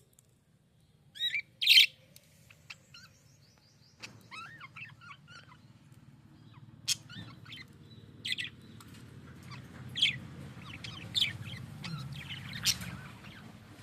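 Budgerigar chirping: two loud sharp chirps near the start, then a run of short chattering chirps and warbles from about four seconds in, over a faint low hum.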